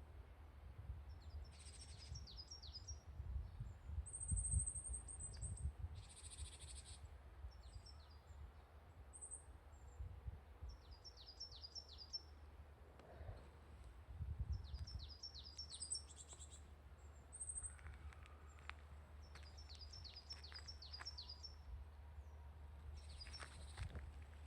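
Wild songbirds singing in woodland: quick runs of high, falling notes repeated every few seconds, with short higher chirps in between, over a steady low rumble.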